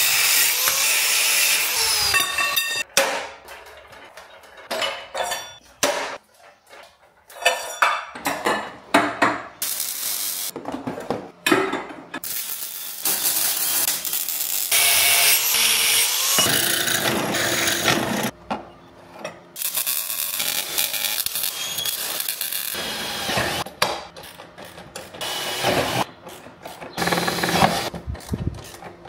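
Workshop power-tool work in long bursts, cutting and drilling, with knocks and handling noises in the short gaps between.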